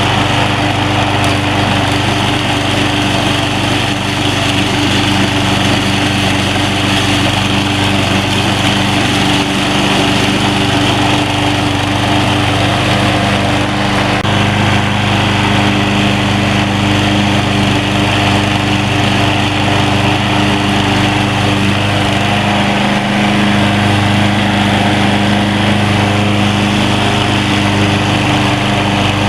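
Troy-Bilt TB230 21-inch self-propelled walk-behind lawn mower running steadily under load while cutting grass, its engine note shifting slightly about halfway through.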